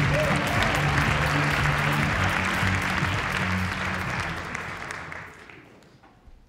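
Theatre audience applauding, with walk-on music playing underneath; both die away about five seconds in.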